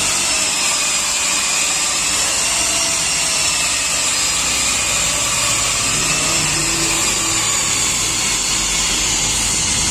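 A steady, loud whirring hiss from a small motor running without a break, with a faint wavering whine over it.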